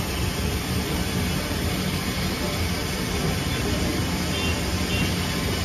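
Steady machine rumble with a low hum from bakery equipment, running evenly throughout.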